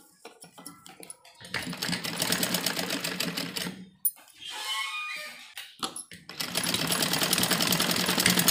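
Sewing machine stitching through layered fabric: a few light handling clicks, then two runs of fast, even stitching, each about two and a half seconds, with a short pause between them.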